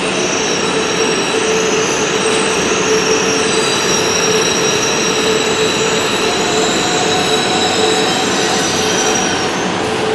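JR East E4 series Shinkansen train slowing as it pulls into the station. A steady rush of rolling noise is laced with several held whining tones, one low and others high, from the wheels and running gear.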